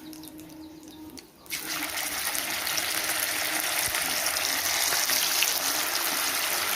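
Marinated chicken pieces deep-frying in hot oil: a steady, loud sizzle that starts suddenly about a second and a half in, after a few faint clicks.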